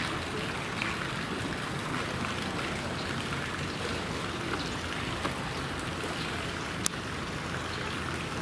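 Steady outdoor rushing background noise, with a single sharp click about seven seconds in.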